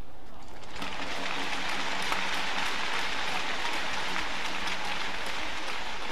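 Steady arena crowd noise, like applause, running under a badminton rally. Sharp knocks of rackets hitting the shuttlecock come through it every so often.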